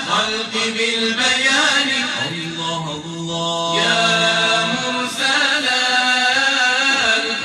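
A man singing an unaccompanied Arabic nasheed, drawing out long melismatic notes on vowels with no clear words, with one note held steady for a couple of seconds around the middle.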